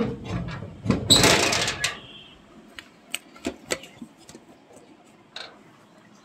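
A loud rustling, scraping clatter for about two seconds, then a few sharp clicks and knocks, like things being handled and moved about.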